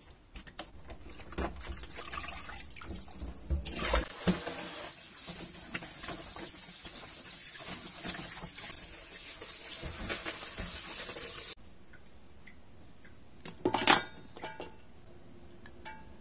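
Tap water running over raw chicken feet in a plastic colander in a stainless steel sink, with the clicks and wet knocks of hands rubbing and turning the feet. The water stops abruptly about two-thirds of the way in. A couple of seconds later comes a loud short clatter in an aluminium pot.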